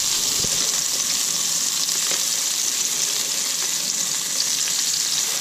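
Seasoned whiting fillets sizzling steadily in a hot, dry nonstick skillet with no oil or butter. A fork and spatula make a few light scrapes and taps as the fillets are turned.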